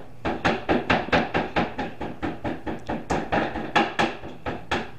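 Meat tenderizer mallet pounding a raw steak on a cutting board: a run of quick, even blows, about four a second, that stops just before the end.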